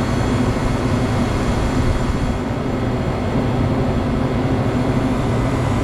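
Walk-in freezer condensing unit running, a steady hum from the compressor under the rush of its condenser fan.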